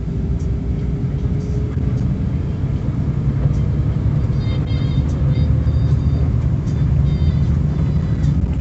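Steady low rumble of an intercity bus's engine and tyres at highway speed, heard inside the passenger cabin.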